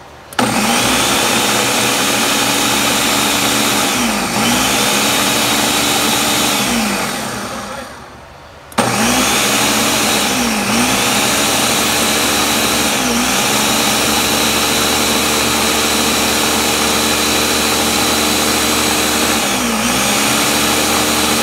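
Countertop blender running at high speed, puréeing tomatoes for a salsa. The motor starts suddenly, its whine dipping briefly in pitch now and then. It winds down about seven seconds in, stops, and starts again abruptly about a second later, running steadily on.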